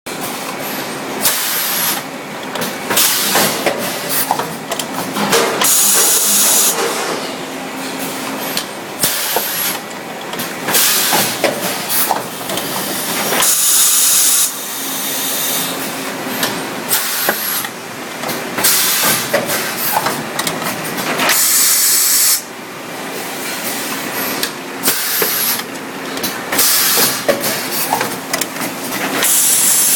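A machine cycling, with a loud burst of air hiss about every eight seconds and shorter hisses and clicks in between, over a steady hum.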